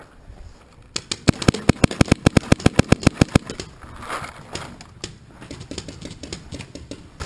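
Paintball marker firing a rapid string of shots, about ten a second for roughly two and a half seconds, starting about a second in. Fainter scattered shots follow.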